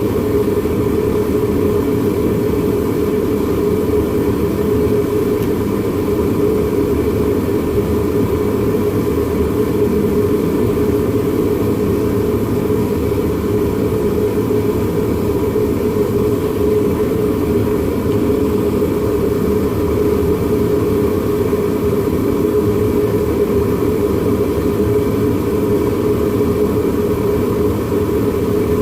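A forge running steadily with a continuous rushing noise while a blade steel heats to its non-magnetic point before an oil quench.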